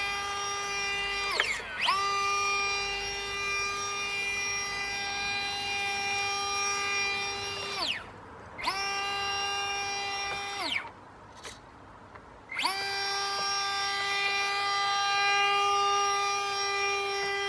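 Small brushed electric motor driving a radio-controlled toy jet ski's water-jet pump, running with a steady high whine. The throttle is cut three times: the pitch falls away as the motor stops and rises again as it spins back up, the last stop lasting about two seconds.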